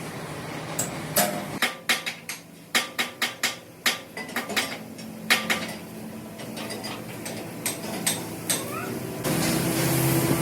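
Metal parts being struck and clanked, with a quick run of hammer blows about three seconds in and scattered knocks after. A steady machine hum sets in near the end.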